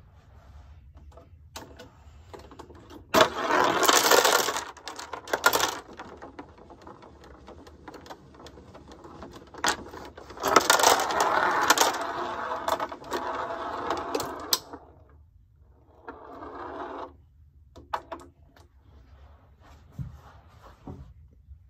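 Vintage Eldon Bowl-A-Matic toy bowling machine working its cycle: two long bursts of plastic clattering and rattling from the pins and the pinsetter mechanism, about three seconds in and again about ten seconds in, with a shorter rattle and scattered clicks later on.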